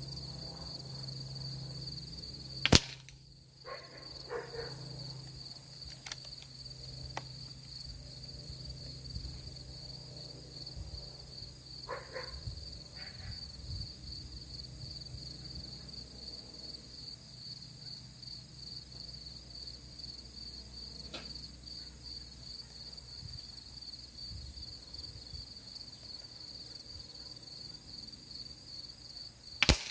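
Two shots from an Air Venturi Avenger .22 PCP air rifle firing slugs, each a single sharp crack, one about three seconds in and one near the end, with a few faint clicks between them. Insects chirr steadily behind.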